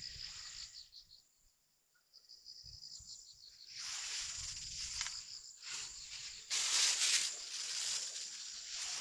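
Insects chirring steadily at a high pitch. The chirring drops out for about two seconds near the start. From about four seconds in, repeated loud bursts of rustling noise come in over it.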